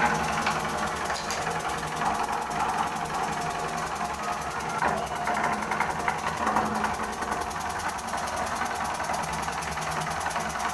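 Homemade single-cylinder steam engine with a large wooden flywheel, running steadily on steam from a pressure cooker, with a fast, even mechanical beat.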